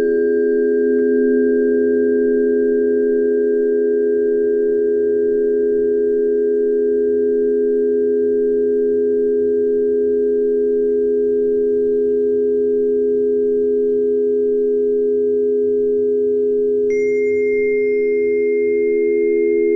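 A sustained 417 Hz Solfeggio meditation tone layered with other steady pure tones, lower and higher, holding without a break. A new, higher ringing tone comes in near the end.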